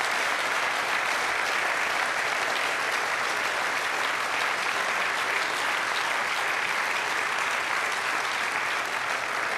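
Large indoor audience applauding steadily, a sustained wash of many hands clapping.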